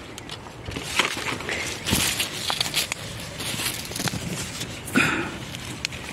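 Broad bean plants rustling and crackling as a hand parts the leaves and stems to pick young pods, with a few sharper crackles about a second, two seconds and five seconds in.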